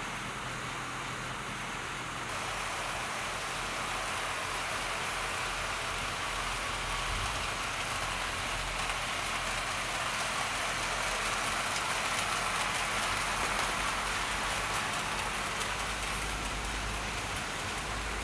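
00-gauge model trains running on the layout: a steady hiss and rumble of metal wheels on the rails and the locomotives' electric motors, swelling slightly about two-thirds of the way through.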